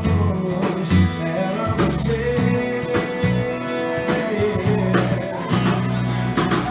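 A song with a singer over guitar and bass, the bass notes changing steadily under the melody.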